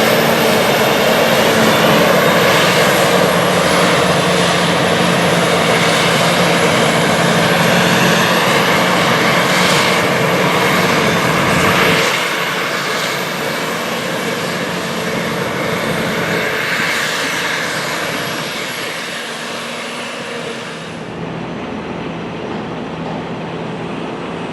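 Heavy farm machinery running steadily, a deep engine tone under dense mechanical noise with a thin high whine. The sound changes abruptly about halfway through, losing much of its low rumble, and again near the end, when the high whine stops.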